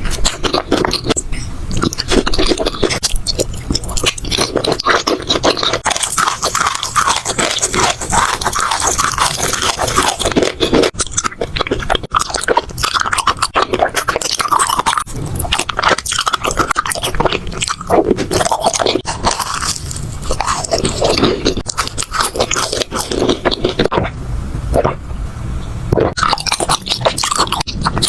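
Close-miked crunchy biting and chewing of food, a dense run of crackles and crunches with no pauses.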